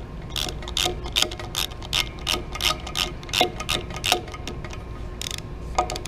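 Small ratchet with a T10 Torx bit clicking in short irregular runs, about two to three clicks a second, while backing out the screw that holds a tire pressure (TPMS) sensor to its valve stem. The clicking thins out after about four seconds.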